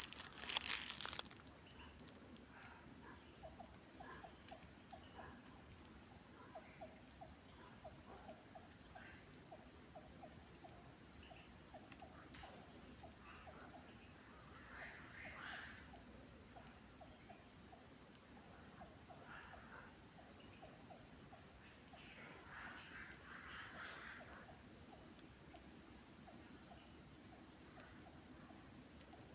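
Steady high-pitched chorus of insects, with a faint short call repeating a few times a second through the middle and a few sharp clicks about a second in.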